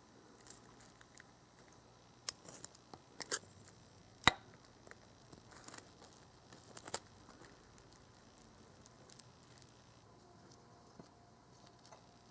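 A small metal spatula clicking and scraping against a miniature frying pan as a tiny pancake is turned and lifted: a few sharp taps, the loudest about four seconds in, with soft scraping between them.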